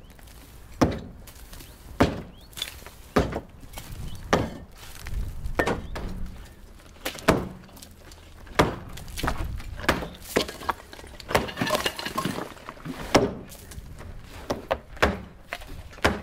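A steel sledge hammer striking a stone and block wall about once a second, around a dozen heavy blows, with stone breaking away and rubble falling between them.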